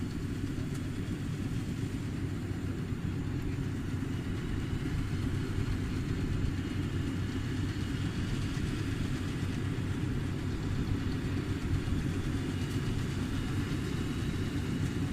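Rice combine harvester running steadily, a continuous low engine rumble with a faint high whine above it.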